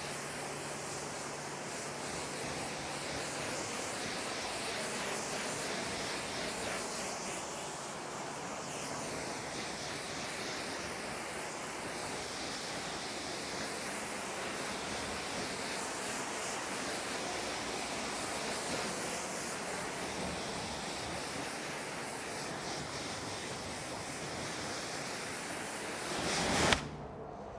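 High-pressure car-wash wand spraying detergent foam onto a car: a steady hiss of high-pressure spray. Near the end a brief louder burst comes, and then the spray stops.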